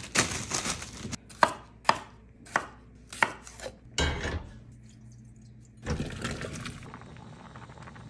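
Kitchen knife chopping on a wooden cutting board: a run of sharp knocks. About four seconds in, a pot knocks down onto the gas stove grate.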